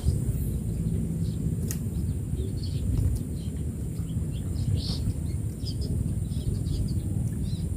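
Outdoor ambience: scattered faint bird chirps over a steady low rumble and a thin, steady high-pitched hiss.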